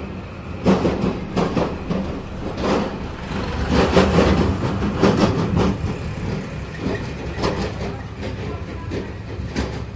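Road traffic noise: a steady low engine rumble with irregular clattering knocks, loudest about four seconds in.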